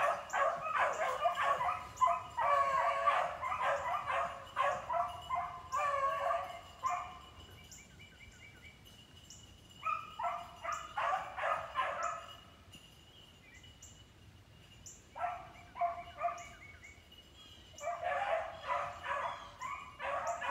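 Beagles baying in rapid overlapping yelps. A long run of cries comes first, then shorter bursts with pauses between them.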